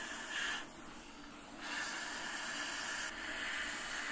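Hot air rework station blowing a steady hiss of air onto the graphics card's circuit board while the small surface-mount AND gate chip is being desoldered and replaced. The hiss drops lower for about a second near the start.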